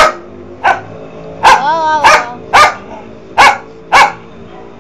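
Small tan dog barking sharply in agitation, about seven barks at uneven intervals, with a longer wavering cry near the middle.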